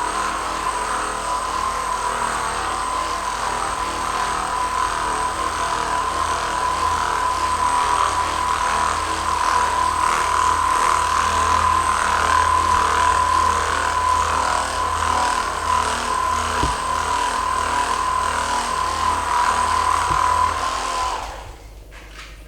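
Handheld electric massage device running steadily with a constant whine, held against the muscles; it switches off near the end.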